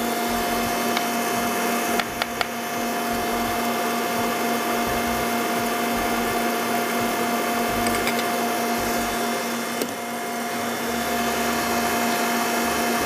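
Electric stand mixer running steadily, its whisk beating foamy egg whites in a stainless steel bowl toward stiff peaks. A few light clicks about two seconds in.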